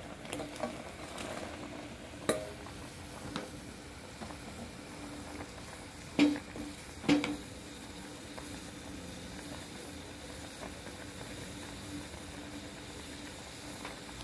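Curry boiling in an aluminium pot on a gas burner, a steady bubbling hiss, with a metal ladle or bowl knocking against the pot a few times; the two loudest clanks come about six and seven seconds in.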